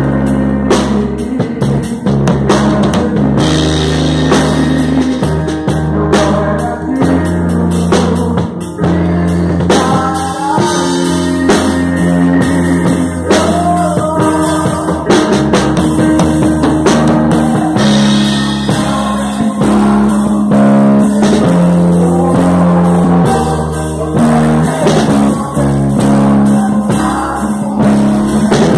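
A drum kit played close up as part of a live worship band, with held bass notes and singing over the top.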